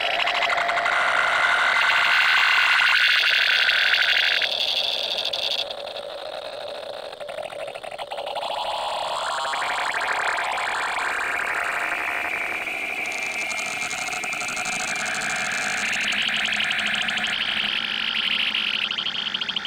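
Heavily distorted, digitally processed audio: a harsh, hissy noise in bands that jump abruptly up and down in pitch every few seconds. It drops quieter for about two seconds around six seconds in, then comes back.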